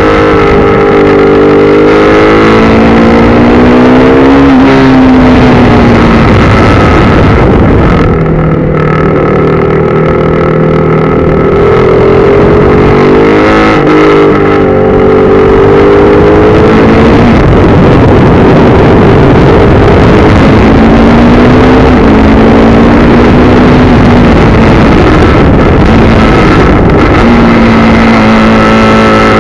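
KTM RC390's single-cylinder four-stroke engine under hard riding on a track, its revs rising and falling again and again through the corners and gear changes, dropping lowest from about eight to twelve seconds in before climbing again.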